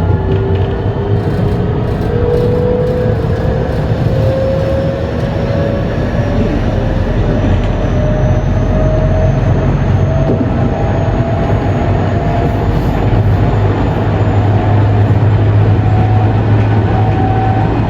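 JR West 207 series motor car with a Mitsubishi power-transistor VVVF inverter, accelerating. The whine of the inverter and traction motors rises steadily in pitch over the rumble of wheels on rail.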